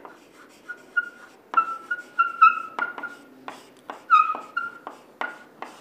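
Chalk writing on a blackboard: quick taps and scratches as letters are formed, with short high-pitched squeaks from the chalk several times between about one and four seconds in.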